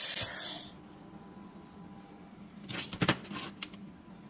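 A handheld fiber laser welder's hissing, crackling spatter fading out within the first second as the weld on the steel tube ends. Then a quiet room with a faint hum, and a few short scrapes and knocks a little under three seconds in, as a gloved hand handles the steel tube.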